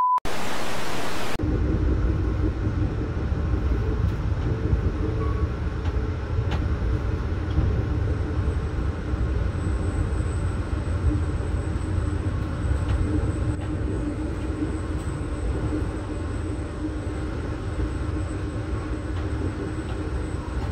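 A short burst of static-like noise, then a steady low rumble with a faint hum running under it.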